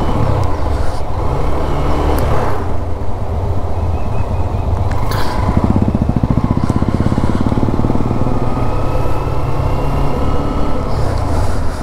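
Hero Xtreme 125R's single-cylinder engine running under way, its note shifting as the throttle changes, with wind rushing over the camera microphone.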